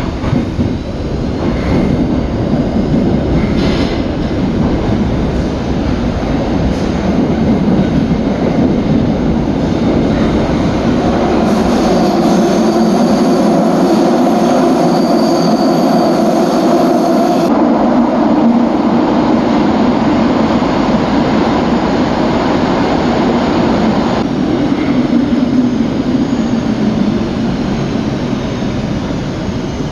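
Ride noise inside one of Bucharest's oldest metro cars running through a tunnel: a steady rumble of wheels on rail and running gear. About twelve seconds in, a whining tone with several pitches joins for roughly five seconds. The noise eases a little near the end.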